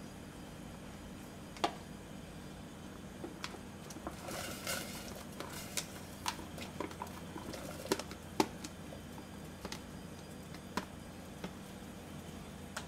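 Chopped vegetables sliding off a plastic tray and dropping into a stainless steel pot of water, with a soft splashing cluster a few seconds in and scattered light clicks and knocks of the tray and pieces against the pot.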